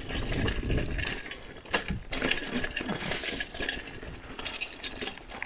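Hardtail mountain bike clattering over rough dirt trail: quick, irregular metallic clinks and rattles over the rumble of the tyres.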